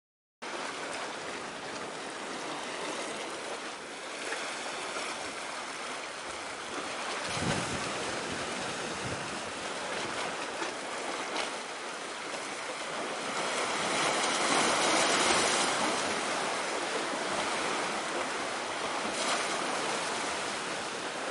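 Sea waves washing in, a steady hiss that swells for a few seconds past the middle.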